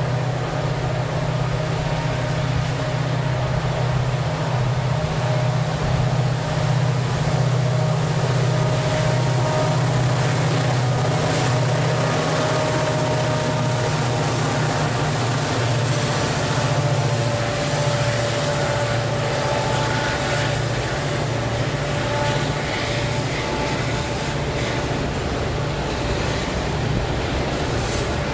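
Diesel locomotives of a heavy grain train working up a steep grade, their engines running steadily under load with a deep, constant hum as they come up and pass close by. Near the end the loaded grain wagons start rolling past.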